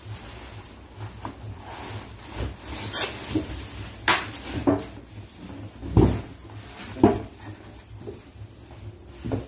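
Plastic wrap rustling and a cardboard carton knocking and scraping as a flat-screen TV is lifted out of its box, with several sharp thumps, the loudest about six and seven seconds in.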